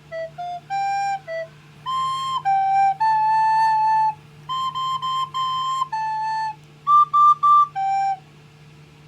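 A child playing a melody on a recorder: a run of clear single notes, some held and some short, with three quick repeated notes about seven seconds in. The playing stops a little after eight seconds.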